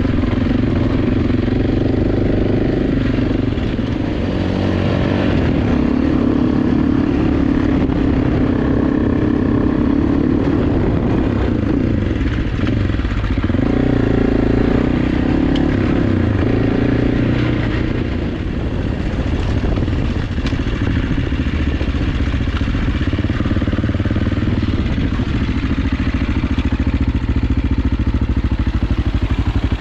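AJP PR7's single-cylinder engine running steadily as the motorcycle is ridden off-road, with its note dropping briefly a couple of times midway as the throttle eases.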